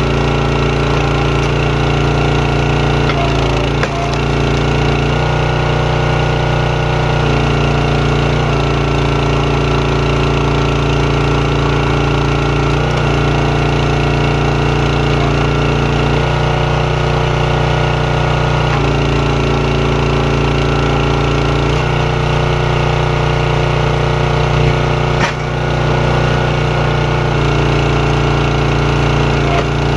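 Small gas engine of a Champion 27-ton hydraulic log splitter running steadily, its note shifting every few seconds as the valve lever drives the ram and the pump takes load. One sharp knock comes about 25 seconds in.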